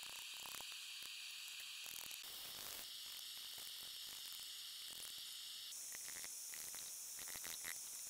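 Faint, rapid clicking from hammer work on hot steel at the anvil, over a steady high hiss that jumps higher about two seconds in and again near six seconds. There is no loud ring of full-force anvil blows.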